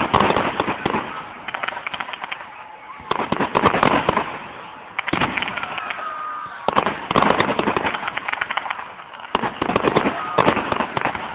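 Fireworks display: shells bursting in waves every one to three seconds, each wave a sharp bang followed by dense crackling, about six waves in all.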